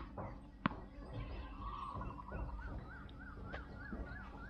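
A tennis ball bounced on concrete gives a sharp knock under a second in. About two seconds in, a domestic fowl calls in a quick run of wavering notes, about three a second, for about two seconds.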